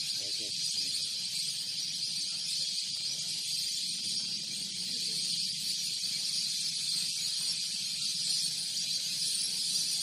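A steady, high-pitched hiss, like insects buzzing in the lakeside trees, running on without a break.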